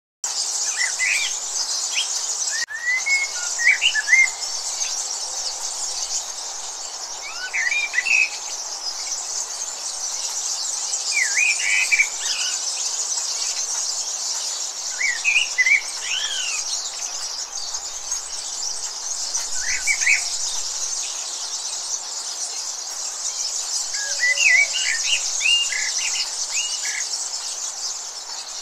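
Birdsong: short chirping phrases every few seconds over a steady high-pitched hiss like insects.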